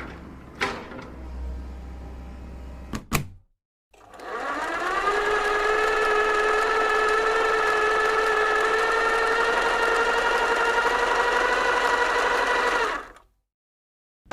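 A low hum with a few sharp clicks, then, after a brief silence, a small electric motor spins up and runs with a steady high whine for about nine seconds before cutting off.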